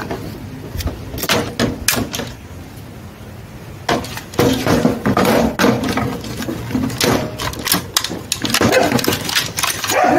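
Hard plastic parts of a car side mirror assembly knocking, clicking and rattling as its housing and motor unit are handled and moved about. A few separate knocks come early, then busier bursts of clatter from about four seconds in.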